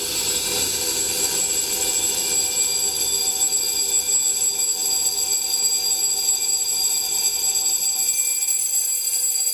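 Electric gong bell ringing continuously inside a glass bell jar. It swells to full loudness in the first half second or so as air flows back into the evacuated jar, then rings steadily and noticeably louder.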